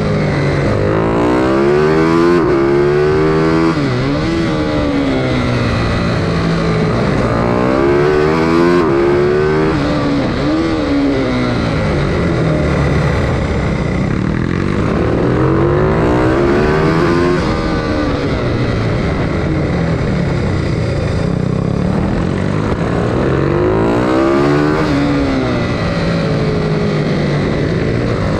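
Bucci BR12 GP minibike engine at race pace, heard on board: it revs up through the gears, dropping in pitch at each shift, then falls away for the corners, over and over.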